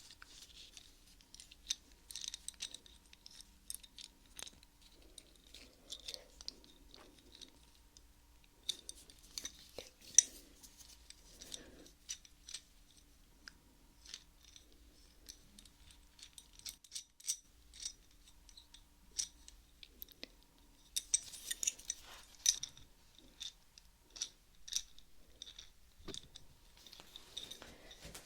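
Close, quiet metal clicks and scrapes of an adjustable wrench being handled, irregular, with a busier stretch of scraping about three quarters of the way through.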